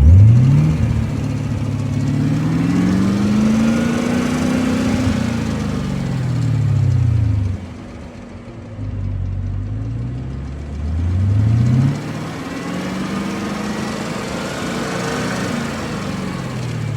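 Chevrolet Camaro ZL1's V8 engine being revved, its pitch climbing slowly and falling back about three times, dropping close to idle about halfway through.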